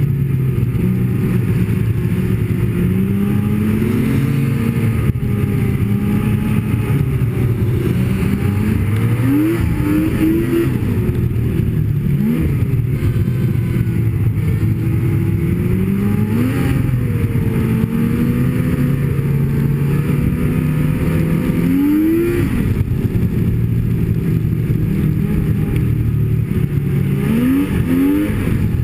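Snowmobile engine running under way, its pitch rising and falling with the throttle, with several quick rises in revs.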